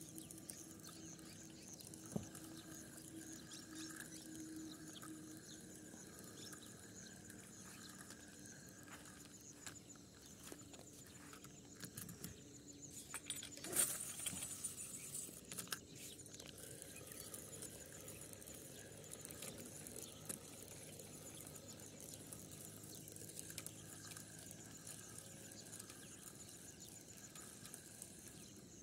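Faint outdoor ambience at a lake shore, with high chirping that keeps up throughout. From about 12 to 16 seconds in come clicks and rustles of the phone and fishing rod being handled, with one sharp knock about 14 seconds in.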